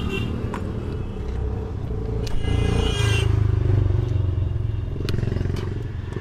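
A motor vehicle engine running steadily with a low rumble that swells for a couple of seconds in the middle, with a brief high-pitched tone about two and a half seconds in and light handling noise from a loose wire.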